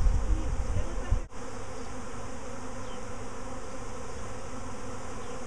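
Swarm of honeybees buzzing as many bees fly close around the microphone, disturbed while the swarm is being moved into a hive. A low rumble covers the first second or so and stops with a brief dropout, leaving the steady hum of the bees.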